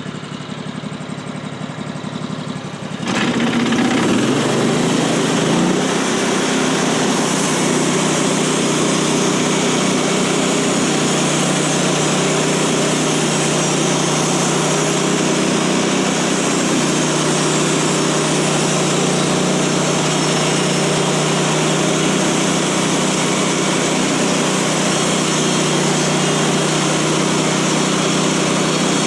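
Gas engine of a Woodland Mills HM136MAX bandsaw mill idling, then throttled up sharply about three seconds in, its pitch climbing for a couple of seconds to a steady full-speed run as the mill starts its cut.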